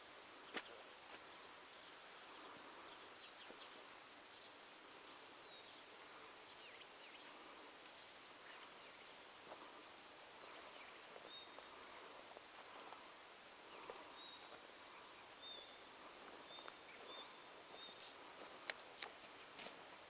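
Faint distant birdsong: scattered short high chirps and a run of thin whistled notes over a quiet background hiss. A few sharp clicks stand out, one just under a second in and a couple near the end.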